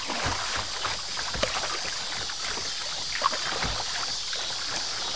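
River water rushing and rippling past a plastic kayak's hull as it runs through a riffle, a steady hiss with irregular low knocks and slaps of water against the hull.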